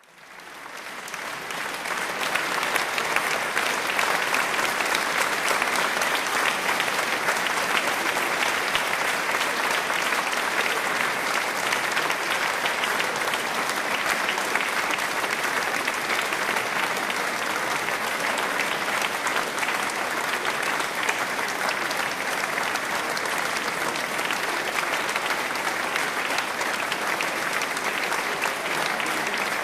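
A crowd applauding steadily: many hands clapping in a dense, even patter that swells up over the first couple of seconds and then holds.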